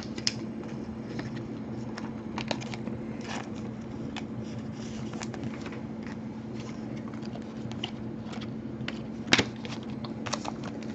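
Trading cards being handled and flipped through, giving scattered light clicks and slides, one sharper click about nine seconds in, over a steady low hum.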